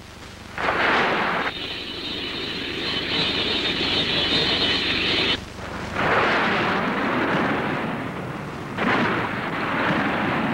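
Cartoon sound effects of a flying craft's jet engine rushing at full speed: a steady hissing roar with a high whine that cuts off sharply about five seconds in. Further surges of rushing noise follow about six and nine seconds in.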